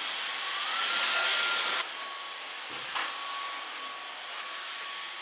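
Cordless stick vacuum cleaner running over a tile floor, a steady motor whine with a rush of air. The whine rises in pitch about half a second in and drops back just before two seconds. There is a short knock about three seconds in.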